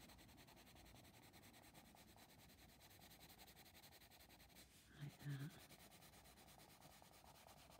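Faint rubbing of a Derwent Coloursoft pencil shading lightly on paper. About five seconds in, a brief low hum of a voice.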